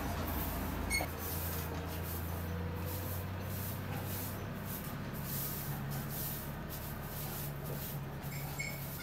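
A short-handled grass broom sweeping spilled grain across the floor: brisk swishes about twice a second, over a steady low hum.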